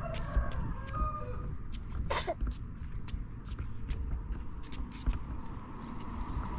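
Footsteps on a concrete sidewalk as an adult and a toddler walk, heard as irregular light taps over a low rumble of wind on the microphone. A few brief voice sounds come in the first two and a half seconds.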